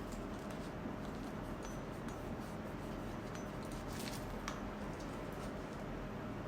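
A few faint, scattered small clicks, the clearest about four seconds in, over a steady low hum and hiss.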